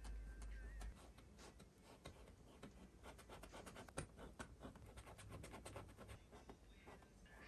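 Quiet, irregular strokes and dabs of a paintbrush working oil paint on a painting, a run of soft scratchy brushes and taps.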